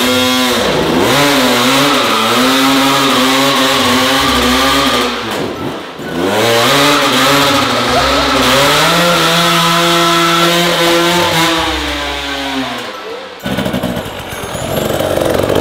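Husqvarna 300 TPI two-stroke single-cylinder dirt bike engine revving, held at high revs in two long stretches with the pitch wobbling up and down. Between the stretches and near the end it drops back.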